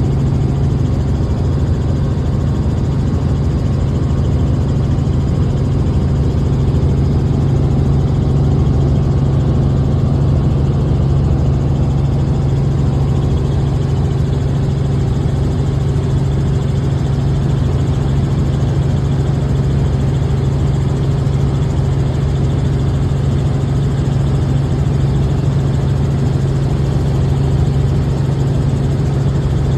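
Helicopter in flight heard from inside the cabin: a loud, steady low drone that doesn't change in pitch or level.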